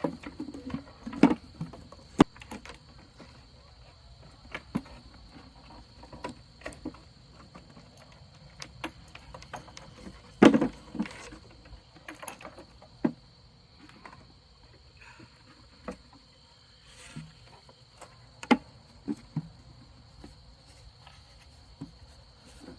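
Irregular knocks, clunks and bumps from climbing a homemade ladder and handling swarm-catching gear, the loudest about a second in and again near the middle. Under them runs a steady high insect trill.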